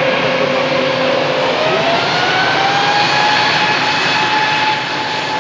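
Airbus A320neo's jet engines running loud under a dense rushing noise. About a second and a half in, their whine rises in pitch and then holds steady, as the engines spool up.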